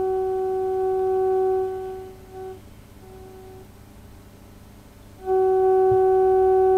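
Steady test tone, a single pitch a little below 400 Hz with overtones, from the Healing 503E valve radio's speaker as it receives a tone-modulated alignment signal at 1500 kHz. The tone fades and drops out about two seconds in as the tuning and trimmer are moved to chase the signal, then comes back loud a little after five seconds when the set is tuned onto it again.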